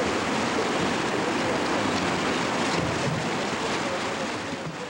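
The flooded Kotsuki River running as a muddy torrent, a steady rush of water that fades out near the end.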